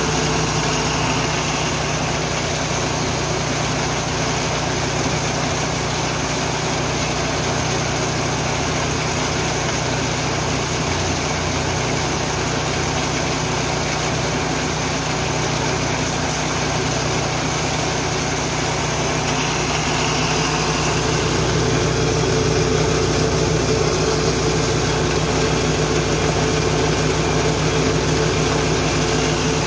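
Petrol-engine-driven Richi KD 350 mini rice and corn mill running steadily, the engine holding an even speed.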